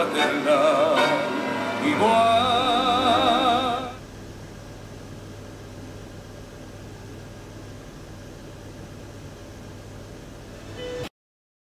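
Music with a singer's voice held on long notes with wide vibrato, stopping about four seconds in. Then a quieter steady low hum of room tone, which cuts off suddenly near the end.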